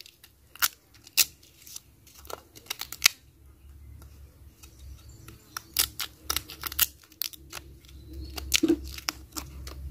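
Knife blade scraping and cutting the fibrous outer layer off an oyster nut seed as it is peeled by hand: short, irregular scrapes and clicks, coming thickest a little past the middle.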